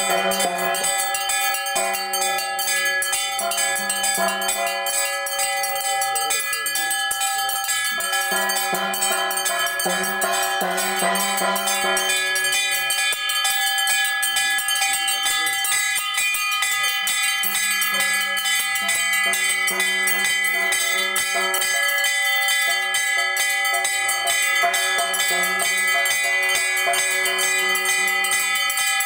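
Puja bells ringing continuously with rapid, even strikes, under a low sustained tone that comes and goes in stretches of a few seconds.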